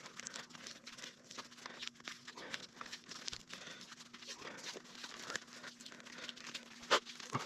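Hands handling a cable and tape: irregular crinkling, rustling and small clicks, with one sharper click about seven seconds in and a faint steady hum underneath.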